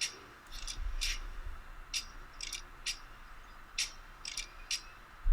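A small bird chirping: short high chirps repeated at uneven intervals, about nine of them.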